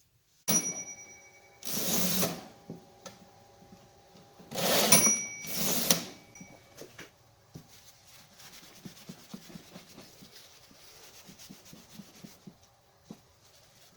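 Metal parts of a Royal No. 5 typewriter being worked on. There is a sharp metallic strike that rings on, then short noisy bursts and a second ringing strike. A run of small, light clicks follows.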